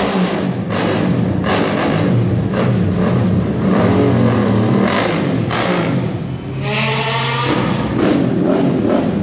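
Ferrari sports car engines running as the cars drive slowly past, with one engine revved hard about seven seconds in, its pitch rising.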